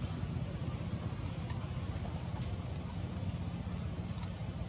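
Outdoor ambience: a steady low rumble with two or three brief, high, falling chirps and a few faint ticks.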